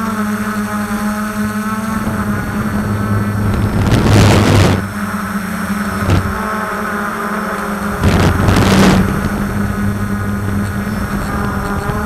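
DJI F450 quadcopter's four brushless motors and propellers whining steadily in flight, heard from a camera on the frame. Two louder bursts of rushing noise come about four and eight seconds in, each lasting about a second.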